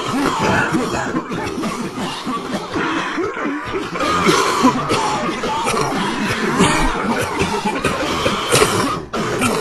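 Many people coughing over one another in a dense, continuous crowd of coughs, which drops off briefly about nine seconds in.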